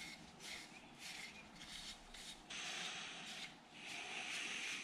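A small rag wiping boiled linseed oil onto a wooden saw handle: a series of faint rubbing strokes, a few short ones and then two longer ones in the second half.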